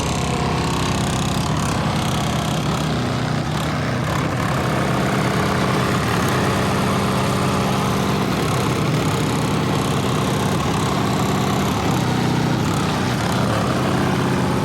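Car sound system in a lowered VW Gol playing bass-heavy music through its subwoofers at high volume, a loud, steady low-end drone with no let-up.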